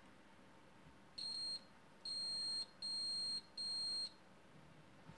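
Digital multimeter's beeper sounding four short high-pitched beeps as its probes are held on the circuit board, during a test for a short across the replaced MOSFET.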